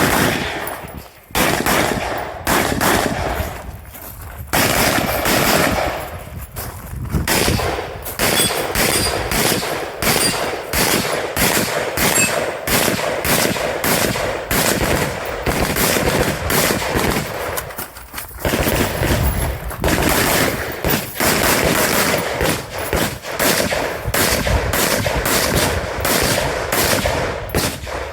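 Rifle fired rapidly in a match stage: strings of fast shots broken by brief pauses, the longest about 18 seconds in.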